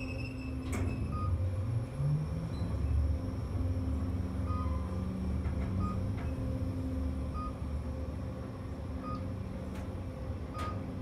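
KONE traction elevator car travelling between floors: a steady low hum and rumble from the ride, with short high beeps every second or two.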